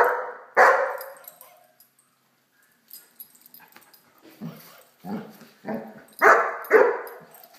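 Great Dane puppy barking: two loud barks at the start, a pause with a few faint sounds, then a quick run of four or so barks in the second half.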